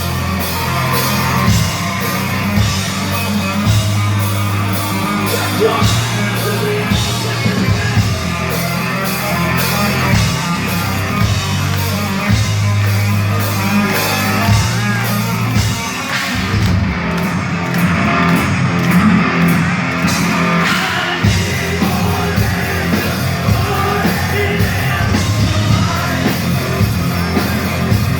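Live heavy rock band playing: distorted guitars, heavy bass, pounding drums and cymbals, with a singer yelling over it. The cymbals drop out for a few seconds past the middle, then come back in.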